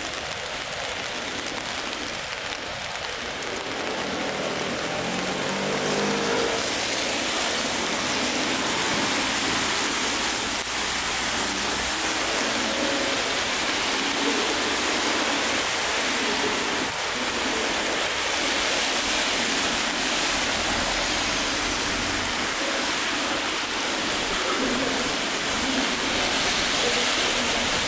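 Steady rain on wet pavement and road, an even hiss, mixed with traffic on the wet street.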